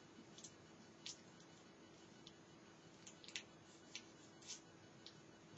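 Near silence: faint room tone with a low steady hum and several soft, scattered ticks.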